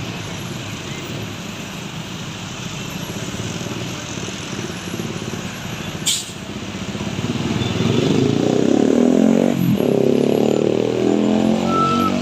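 Heavy trucks passing on a road. About halfway through there is a short sharp hiss, then a big truck's diesel engine grows loud as it passes close and stays loud to the end.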